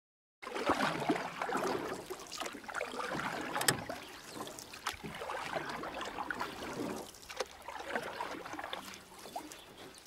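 Water lapping and splashing, with irregular small splashes. It starts suddenly about half a second in and fades toward the end.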